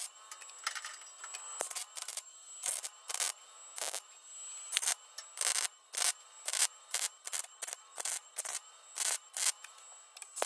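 MIG welder stitch welding thin sheet steel: about twenty short welding bursts, roughly two a second, each a brief crackle separated by short pauses.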